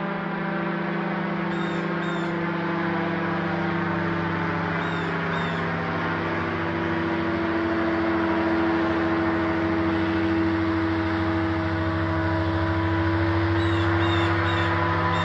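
Paramotor (powered paraglider) engine and propeller running overhead, a steady pitched hum that grows louder about halfway through. A few short bird calls come near the start and again near the end.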